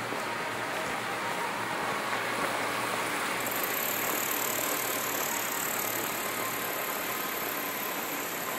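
Steady street ambience: an even wash of city noise, with a thin, very high whine coming in about three and a half seconds in and holding.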